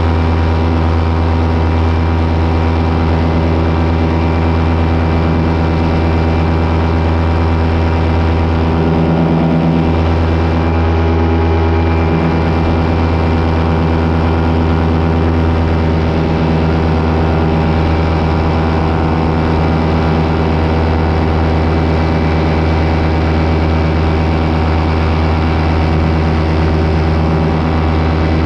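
Small aircraft engine running steadily in flight, a loud even hum with a slight swell about a third of the way in, heard from the pilot's helmet camera.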